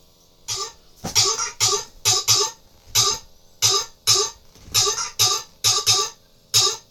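Opening of a rap track played through a homemade portable speaker with a subwoofer: after a brief silence, a syncopated beat of short sharp hits with bass thumps, roughly two a second.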